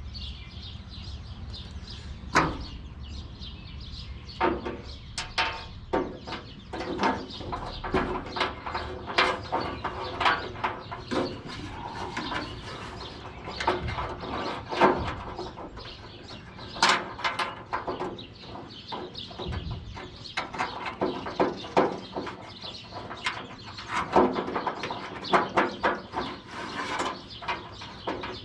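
Irregular metal clicks, taps and scrapes from hand-fitting a new trunk lock cylinder and its parts into a 1967 Plymouth Barracuda's trunk lid. Birds chirp faintly behind.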